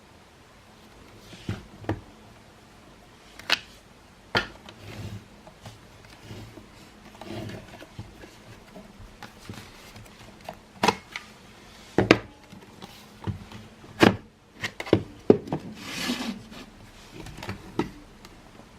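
Handling of a Makita CL108FD cordless vacuum cleaner's plastic parts during disassembly: irregular sharp clicks and knocks with rubbing and scraping between them, and a longer rustling scrape about two-thirds of the way through.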